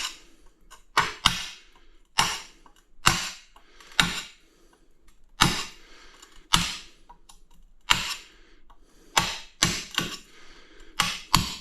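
Sharp ceramic taps, about a dozen at uneven intervals of roughly a second: a piece of tile knocking small chips off the edge of a cut tile to widen a hole.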